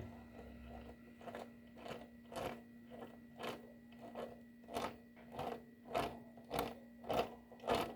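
Broken primary-shaft bearing of a Honda Bros 150 engine being turned by hand, giving a repeated gritty crunching rasp about twice a second that grows louder and a little quicker toward the end. The sound is the sign of the broken bearing with excessive play.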